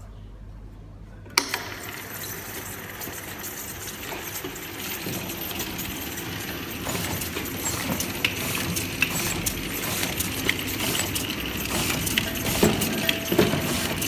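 Automatic bottle labeling machine starting with a sharp click about a second and a half in, then running with steady machine noise while glass cough syrup bottles clink against each other, many small clinks, growing slowly louder.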